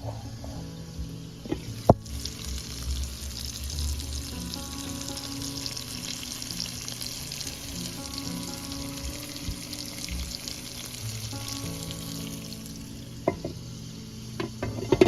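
Pork chops frying in hot olive oil in a skillet: a steady sizzle, with a sharp knock about two seconds in and a few clicks near the end.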